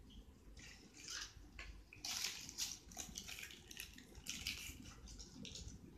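Plastic toy packaging rustling and crinkling as it is handled, in uneven bursts that pick up about two seconds in.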